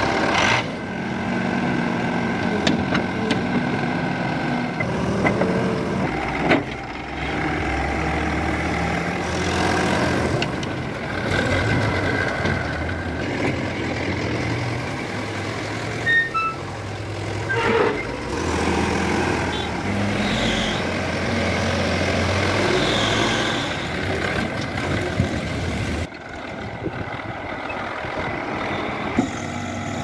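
JCB backhoe loader's diesel engine running, with other heavy vehicle engines; a few short high tones sound about sixteen seconds in.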